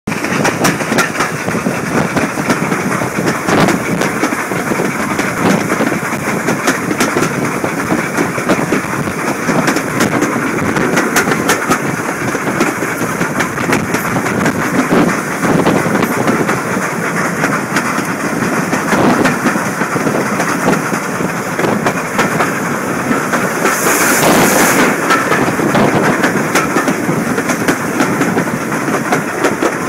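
LMS 3F steam tank locomotive and its train running along the line, close up from beside the engine: a steady rush of running noise and wind with sharp wheel clicks and clacks over the rail joints. A brief louder hiss comes near the end.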